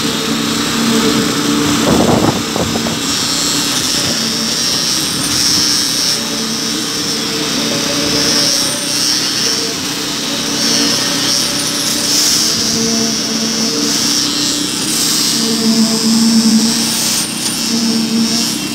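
Concrete-pouring machinery running steadily with a low pitched hum as wet concrete is pumped through the hose onto a rebar deck, with a short clatter about two seconds in.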